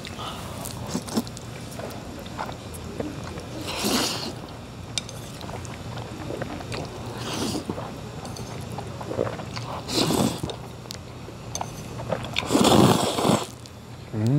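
A person eating jjajangmyeon, slurping up the black-bean-sauce noodles in several short slurps a few seconds apart with chewing between them; the longest and loudest slurp comes near the end.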